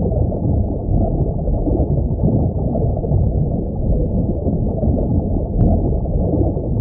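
Underwater ambience: a steady, muffled, low rumbling wash of water.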